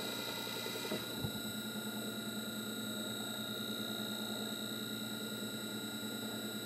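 Metal lathe parting off a small turned engine head: cutting noise until about a second in, a light knock, then the lathe running on with a steady whine and hum.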